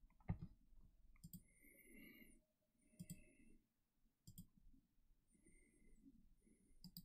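Computer mouse clicking about five times, one click every second or two, over near silence.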